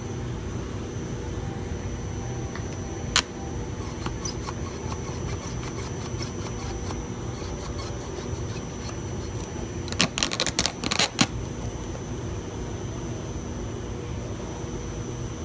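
Plastic parts being worked by hand inside a car door, over a steady background hum. There is a sharp click about three seconds in, a few faint ticks, and a quick run of sharp clicks and knocks about ten seconds in as the plastic cover and mirror-wire connector are worked free.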